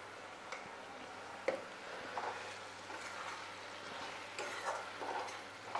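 Masala sizzling and bubbling in a kadhai while a metal spatula stirs and scrapes it against the pan. There is a sharp knock of the spatula about a second and a half in.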